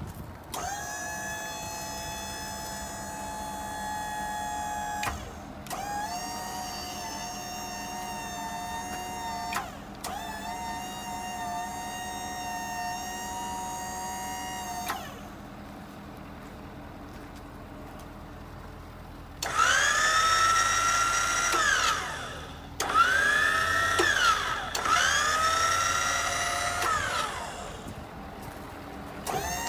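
Auto Crane 5005EH electric-over-hydraulic crane running under remote control: its motor-driven hydraulic pump whines steadily in three runs, pauses, then whines louder in three more runs. In each of the last three runs the pitch drops sharply as it starts, as the pump takes up the load of the boom.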